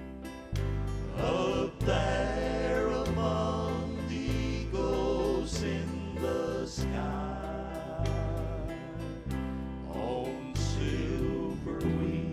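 Music: the slow introduction of a song, with a held melody line that wavers in pitch over a bass line changing note every second or so. No lyrics are sung yet.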